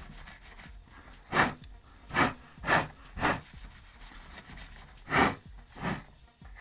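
Short, sharp puffs of breath blown at a freshly sanded wooden surface to clear the dust: four quick puffs, a pause, then two more.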